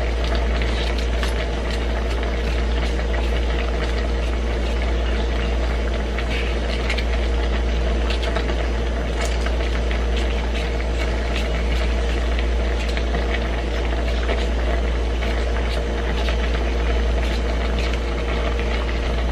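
A large stockpot boiling on a gas burner: a steady low rumble with bubbling, and a few faint ticks over it.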